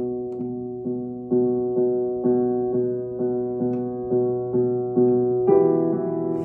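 Piano being played in an even, unhurried rhythm of about two notes a second, ending on a louder chord near the end.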